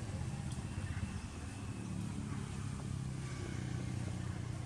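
A motor vehicle engine running, heard as a steady low hum.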